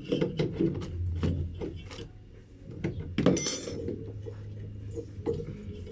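Irregular metallic clinks and knocks of tools and parts being handled during washing machine motor replacement, with one sharp clank about three seconds in.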